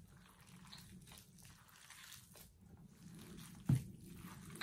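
Gloved hand kneading raw ground pork with egg, flour and seasonings in a stainless steel bowl: faint, soft wet squishing, with a brief thump about three-quarters of the way in.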